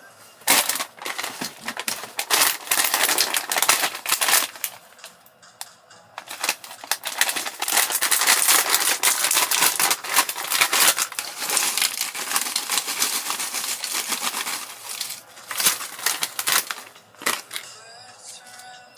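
Loud, dense crackling noise full of fine clicks, in two long stretches with a short lull about four seconds in.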